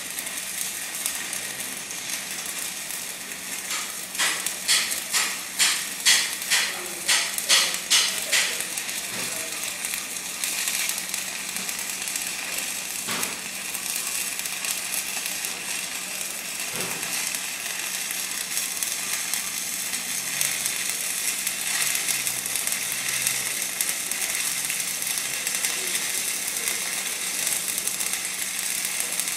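Stick-welding (SMAW) arc crackling and sizzling steadily during a hot pass on 6-inch schedule 80 pipe, with a run of about nine louder pulses, roughly two a second, a few seconds in.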